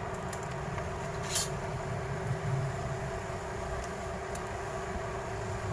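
Steady mechanical hum with a low drone and a few held tones. A brief sharp click or scrape comes about a second and a half in.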